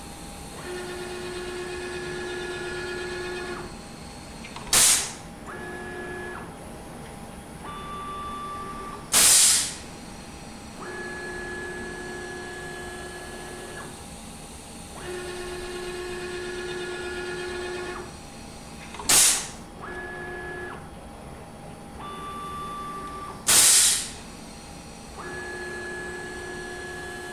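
A CNC router's automatic tool changer runs two identical tool-change cycles. The axis and carousel drive motors give steady electric whines as they move, broken by four loud, short hisses of compressed air from the ATC spindle's pneumatic drawbar releasing and clamping tool holders. In each cycle the first hiss is short and the second a little longer.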